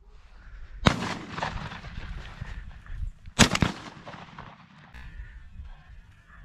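Two shotgun shots about two and a half seconds apart, fired at passing wood pigeons, each followed by a long echo that fades away.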